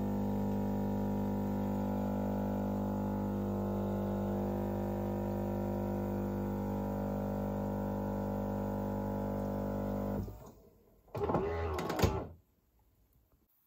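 A Siemens EQ.6 series 300 fully automatic espresso machine runs steadily while brewing espresso through its twin spouts. The hum cuts off about ten seconds in, and a brief, louder, wavering burst follows just before the machine falls quiet.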